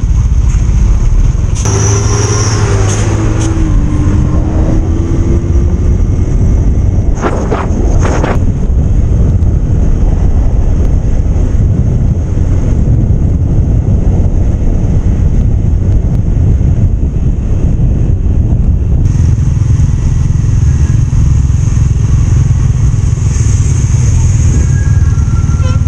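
Riding on a motorcycle at road speed: heavy wind rush on the microphone over the bike's engine running, its pitch dipping and then slowly climbing a few seconds in.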